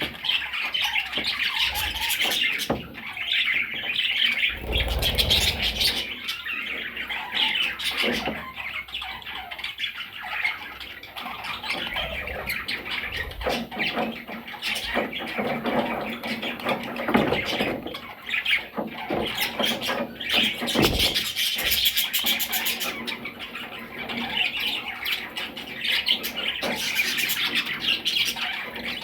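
Pet parrots squawking and chirping continuously, a busy chatter with many short clicks mixed in.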